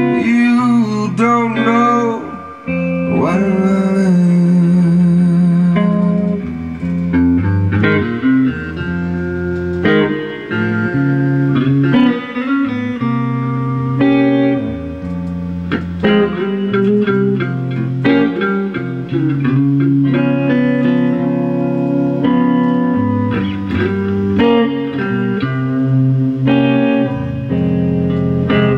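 Live band playing a song on electric guitars, with a voice singing.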